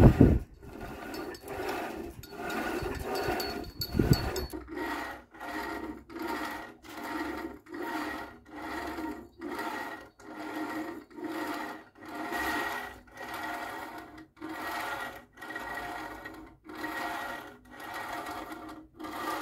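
Homemade cable-and-pulley exercise machine in use: the cable running back and forth over its pulleys with a rhythmic squeaking rub, about three strokes every two seconds. A thump about four seconds in.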